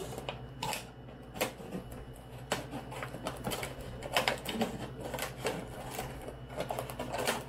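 Milwaukee scissors cutting around the top of a thin plastic gallon water bottle: a string of irregularly spaced snips.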